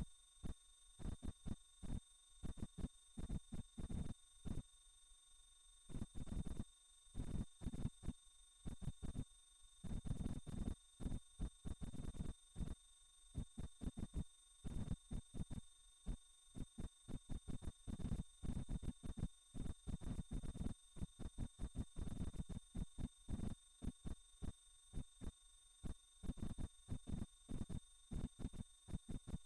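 A synthesized pure sine tone at a single very high pitch, held steady, its loudness pulsing quickly and evenly: a sound-healing frequency track.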